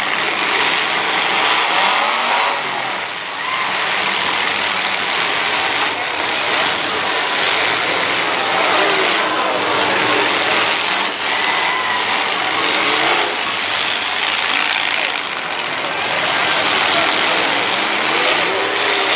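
Many demolition derby cars' engines running and revving hard together: a loud, continuous din of overlapping engines whose pitches rise and fall as the drivers accelerate and back off.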